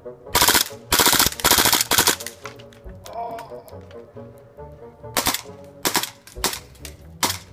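WE Glock gas-blowback airsoft pistol in an APS carbine kit firing: three quick rapid-fire bursts in the first two seconds, then four single shots about a second apart in the last half. Music plays faintly underneath.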